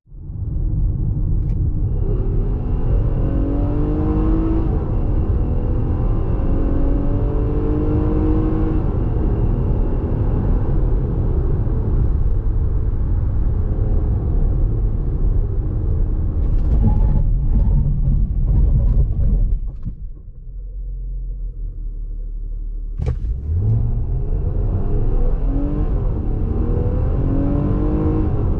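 2023 Nissan Pathfinder's 3.5-litre petrol V6 accelerating hard, its engine note rising and then dropping back at each upshift of the automatic gearbox. About 20 seconds in it eases off. A click follows a few seconds later, and then it pulls and climbs in pitch again.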